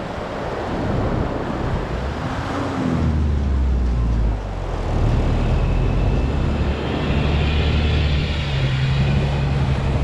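Toyota FJ Cruiser's V6 engine pulling through soft beach sand, growing louder as the SUV drives up to and past, its note climbing near the end.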